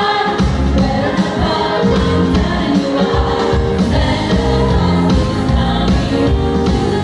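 A group of women singing together into microphones over amplified backing music with a steady beat.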